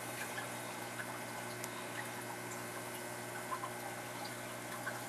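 Aquarium water running steadily: a trickling, bubbling hiss with small drips and pops over a low hum.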